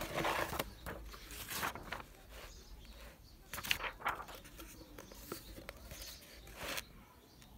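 Glossy magazine pages being turned and handled, with a few short paper rustles and swishes.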